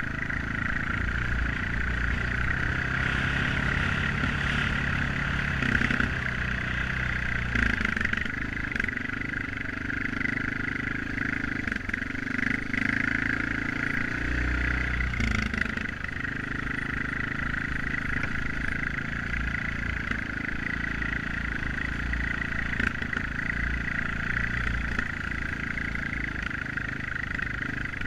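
Honda XR650 dirt bike's single-cylinder four-stroke engine running steadily as it rides a rough dirt trail. The engine note changes pitch with the throttle about a third to halfway through.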